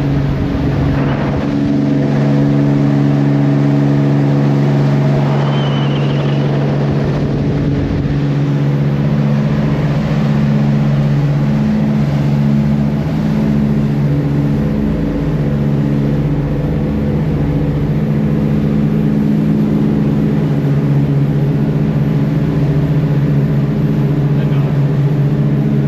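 Fishing boat's engines running steadily under way, a constant deep drone.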